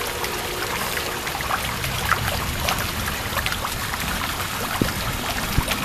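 Thunderstorm rain pouring down steadily, with many small drips and splashes ticking through it.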